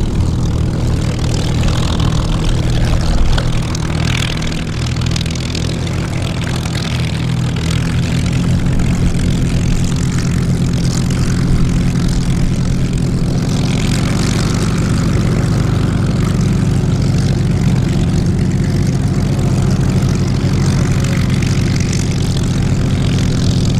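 Piston V-12 aero engines of WWII fighters running steadily at taxi power: a Spitfire Mk VIII's Rolls-Royce Merlin 70 taxis past, and a P-40E Kittyhawk's Allison V-1710 taxis up near the end. The engine note is low and steady.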